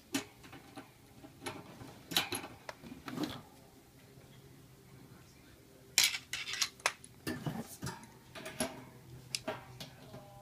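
Metal clinks and clanks from the steel wire guard of a small exhaust fan and its nuts and bolts being worked with pliers, coming in scattered bunches of sharp clicks.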